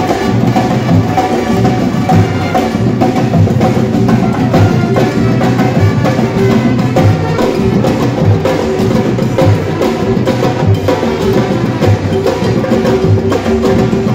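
Ensemble of mounted, stick-struck drums playing a steady, driving percussion rhythm together, loud and continuous.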